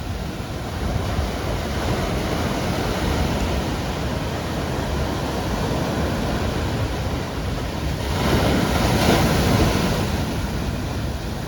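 Sea waves breaking and washing in steadily. A larger wave swells up about eight seconds in and fades over the next two seconds.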